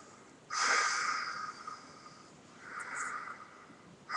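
A person breathing heavily, two rasping breaths, the first about half a second in, the second near three seconds.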